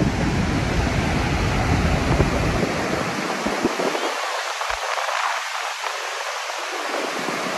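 Steady roar of Niagara Falls' falling water. A low wind rumble on the microphone drops away about three seconds in.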